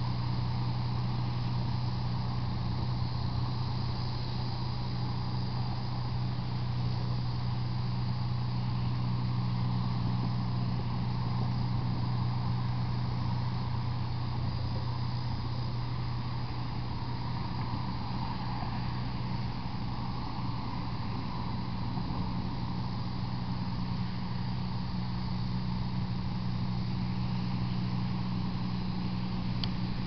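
Steady low hum under an even wash of noise, unchanging throughout, with nothing sudden.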